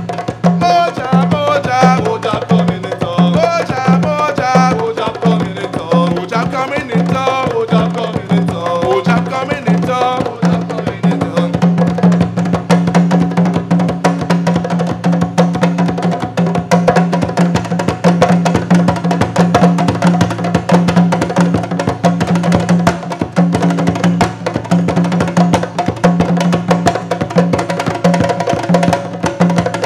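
An ensemble of djembe-style hand drums plays a fast, steady rhythm. Voices sing over the drums for about the first ten seconds, then the drumming carries on alone.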